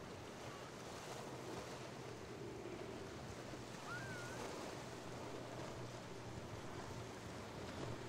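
Boat engines droning steadily over a wash of surf and wind on the microphone, with a short chirp about four seconds in.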